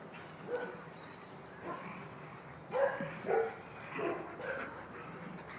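Dogs barking in play: about half a dozen short barks spread across a few seconds, the loudest near the middle.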